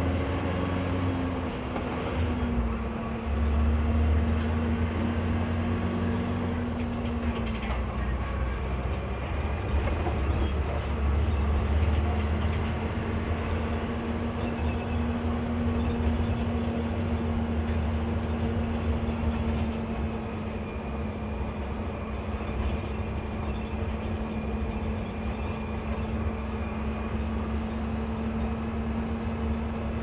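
Cummins ISBe 170 hp diesel engine of an Agrale MA 12.0 city bus idling steadily, its pitch dipping slightly a couple of seconds in.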